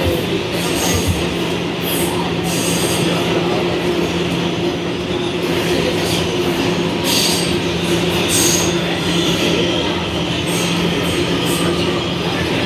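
Interior of a Kawasaki R211A subway car running through the tunnel: a steady rumble of wheels on rail with a constant low hum, and brief high-pitched wheel squeals that come and go several times.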